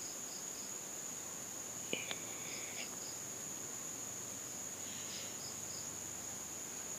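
Faint insect chirping: short pulses in groups of three or four, recurring every couple of seconds, over a steady high whine. A light click comes about two seconds in.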